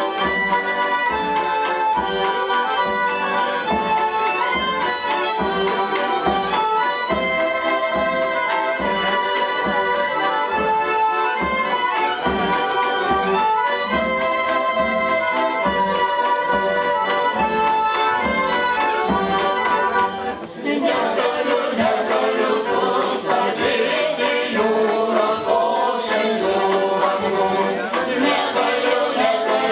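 Folk ensemble of several bandonions (button concertinas), with double bass and fiddle, playing a traditional tune in chords and rhythmic pulses. About two-thirds of the way in the music breaks off briefly and resumes with voices singing over the instruments.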